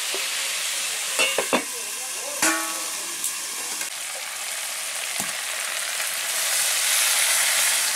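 Spiced vegetables and fried fish sizzling in oil in a metal kadai, with a few metal clinks against the pan and one ringing clang about two and a half seconds in. Near the end, water is poured into the hot pan once the curry is fried down, and the hiss grows louder.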